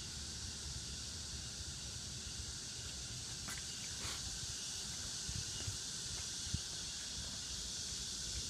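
Steady background hiss with a low rumble, and a couple of faint clicks about three and a half and four seconds in; no machine is heard running.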